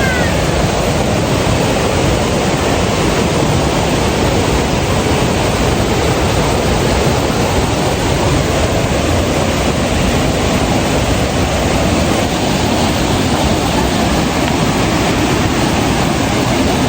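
Mountain river water rushing: a loud, steady, unbroken rush.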